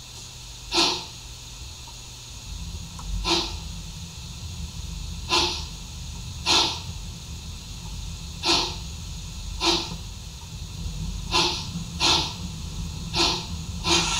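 Sound-equipped Märklin gauge 1 G8.1 model steam locomotive starting off very slowly: sharp hissing steam chuffs from its sound unit, one to two seconds apart and coming closer together toward the end, over a low rumble that sets in about two and a half seconds in.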